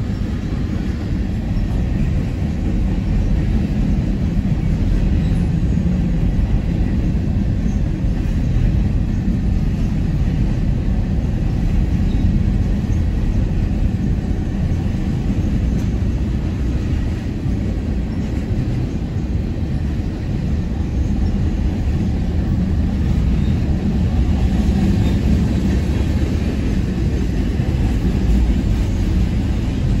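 Freight cars of a mixed manifest train, tank cars and covered hoppers, rolling past close by: a steady, loud rumble of steel wheels on the rails that holds without a break.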